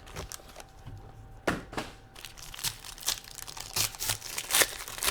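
Trading-card packaging being crinkled and torn open by hand in a string of irregular sharp crackles and rips.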